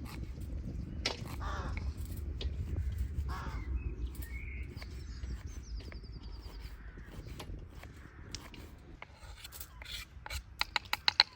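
Outdoor bird calls over a steady low rumble, with scattered knocks and a quick run of sharp clicks near the end.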